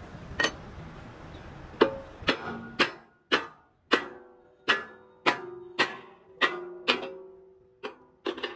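Hammer blows on steel: about a dozen sharp strikes, roughly one every half second, each leaving a short metallic ring, beginning about two seconds in.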